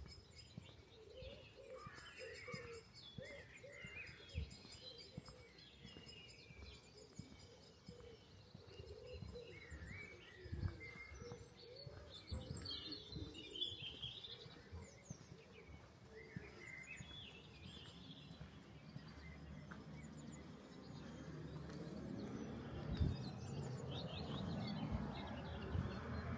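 Small birds chirping and calling, over soft footsteps on a walk. Near the end a vehicle approaches, its sound growing steadily louder.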